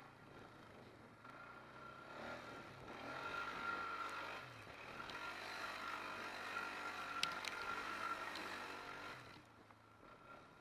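All-terrain vehicle engine pulling along a trail, growing louder about two seconds in as it speeds up and easing off again near the end, with a steady whine over it. A single sharp knock about seven seconds in.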